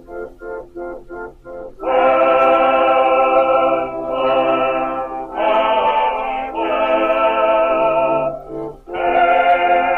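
Background music: short repeated chords, about three a second, for the first two seconds, then long held chords in phrases of one to three seconds.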